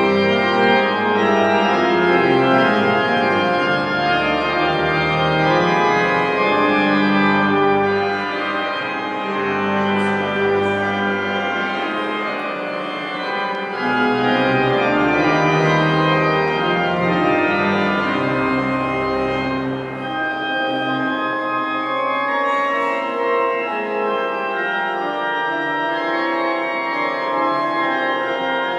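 Organ playing held chords over a bass line; the lowest notes drop out for about two seconds some twelve seconds in, and again from about twenty seconds on.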